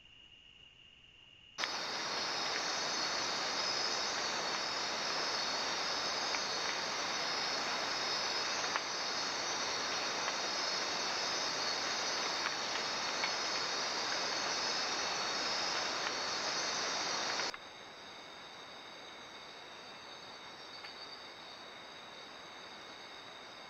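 Tropical forest insects chirring at night, a steady chorus of crickets and similar insects picked up by a trail camera's small microphone. The sound jumps suddenly to a loud, dense hiss about one and a half seconds in and drops back just as suddenly after about sixteen seconds, leaving a quieter chorus of steady high tones.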